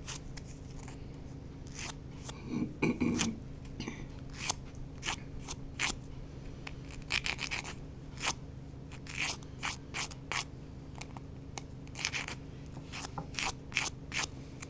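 Nail file rasping against a fingernail in short, irregular strokes, filing the edge of an applied nail-dress strip, with a denser rub about three seconds in.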